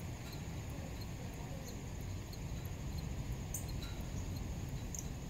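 Backyard ambience: a steady low rumble under a continuous high-pitched whine, with a few short, high bird chips about three and a half and five seconds in.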